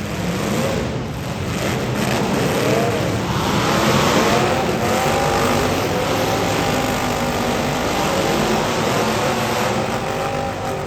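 Several demolition derby cars' V8 engines revving and running hard at once, their pitches rising and falling over one another.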